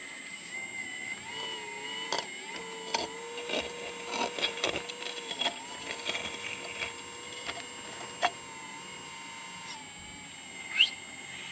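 Hydraulic pump of a Kabolite 970 RC excavator whining steadily, its pitch shifting as the boom and bucket move, with many light clicks. A short rising squeak near the end.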